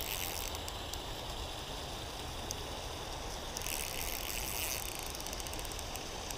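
Steady rush and ripple of a flowing creek.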